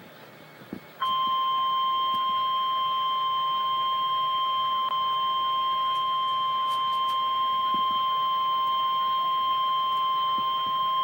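Emergency Alert System warning alarm tone on a National Weather Service broadcast: one steady, piercing pitch near 1 kHz, the 1050 Hz alert tone. It comes on abruptly about a second in, holds unchanged for about ten seconds, then cuts off, announcing that a warning message follows.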